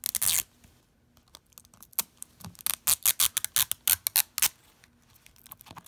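Fingernails picking at and peeling the sticker seal off the wrapping of an LOL Surprise ball: crackling wrapper and sharp ticks, busiest from about two and a half to four and a half seconds in, after a brief rustle at the start.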